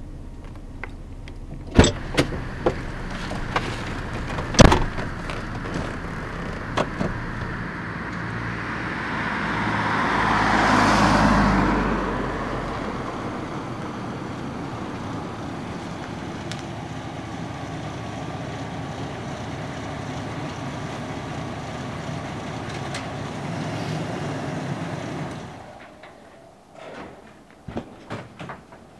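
Chevrolet SUV engine running as the vehicle drives in, with a few sharp knocks in the first five seconds. It grows louder to a peak about eleven seconds in, then settles to a steady idle. About 25 seconds in the engine is switched off, and a few small clicks and knocks follow.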